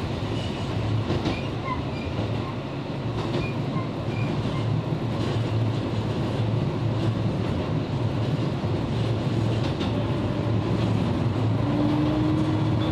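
Interior of a Wakasa Railway 'Showa' diesel railcar running on the line: a steady low engine and running drone, with the wheels clicking now and then over rail joints. Near the end a tone rises in pitch and then holds steady.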